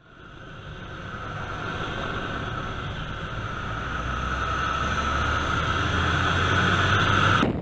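Zlin 50 aerobatic plane's engine, propeller and rushing air heard from inside the cockpit, with a steady high whine over a low rumble. It grows steadily louder as the plane points nose-down toward the ground, then cuts off suddenly near the end.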